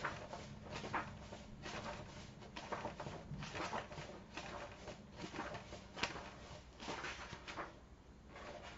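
Pages of a paperback book being flipped and thumbed through, a run of quick papery rustles and flicks.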